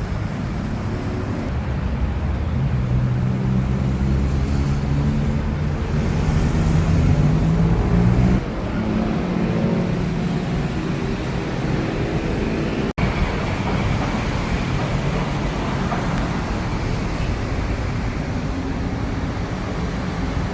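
Street traffic with a motor vehicle's engine running close by. Its pitch climbs slowly over the first eight seconds, then stops and leaves a steady traffic hum. The sound drops out for an instant about thirteen seconds in.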